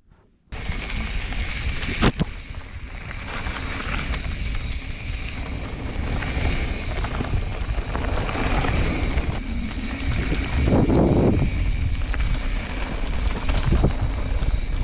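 Wind buffeting the microphone over the rumble of mountain bike tyres rolling fast down a dirt singletrack, cutting in about half a second in. A sharp knock comes about two seconds in.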